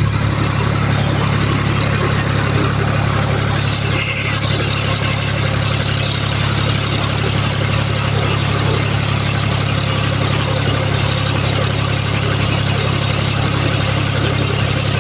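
Tractor engine running steadily at raised throttle while dragging a heavy log.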